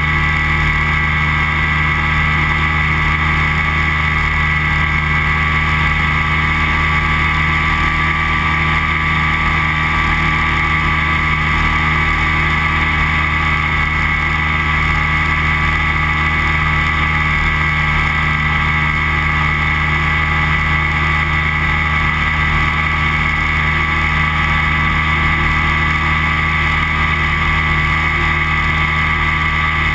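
Flexwing microlight trike's engine and propeller running steadily at an unchanging pitch in level cruise.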